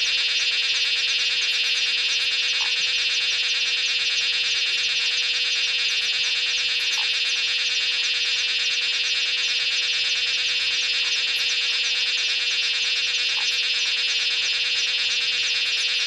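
Dense, steady night chorus of calling frogs and insects, with a faint short call every few seconds.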